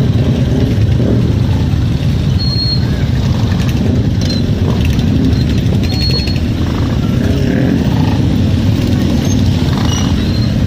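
A column of cruiser motorcycles riding slowly past at close range, many engines running together in a steady low drone, with crowd chatter.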